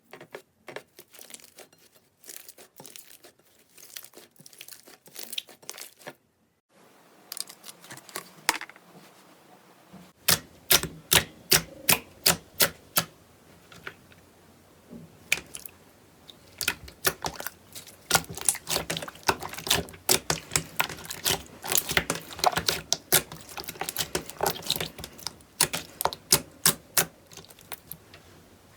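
Slime being squeezed and worked, giving rapid sharp crackling and popping clicks. The sound breaks off briefly about six seconds in, then comes back with louder, denser clicks from about ten seconds in.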